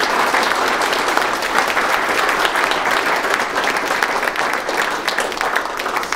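Audience applauding: many people clapping together in a dense, steady patter that eases slightly near the end.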